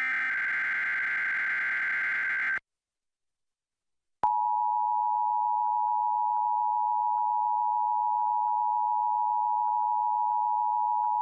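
An Emergency Alert System SAME header data burst, a dense stream of digital tones, cuts off about two and a half seconds in. After a short silence the EAS attention signal begins: a steady two-tone beep near 1 kHz that holds to the end.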